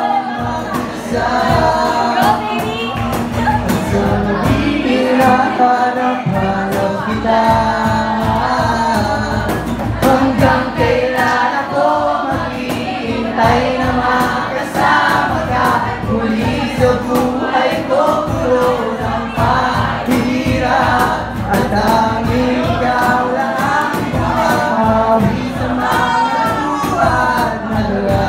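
Live acoustic band: two male vocalists singing together over acoustic guitars, bass guitar and a cajon keeping a steady beat.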